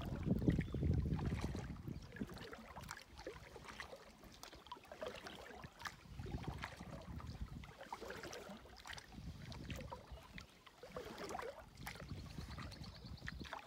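Canoe paddle dipping and pulling through calm water, with soft swishes, splashes and drips off the blade. There is a low swell in the first couple of seconds, and a short, rapid run of high ticks near the end.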